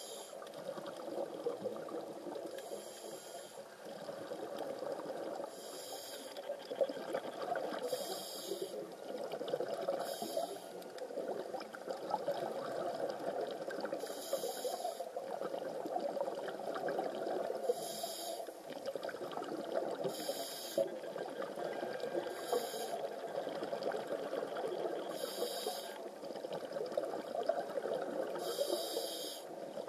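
Underwater breathing of a scuba diver through a regulator: short hissing inhalations come every two to three seconds over a steady rushing water noise.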